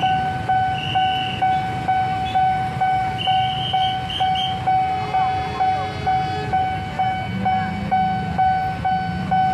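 Railway level-crossing warning bell ringing a steady pulsed tone, about two strokes a second, signalling that a train is approaching and the crossing is closed.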